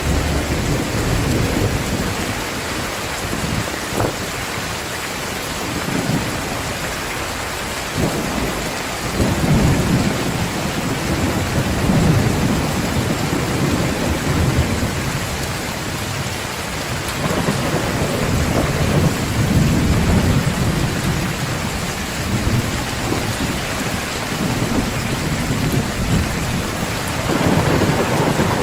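Heavy rain pouring steadily while thunder rumbles low in long swells, loudest about twelve and twenty seconds in and again near the end.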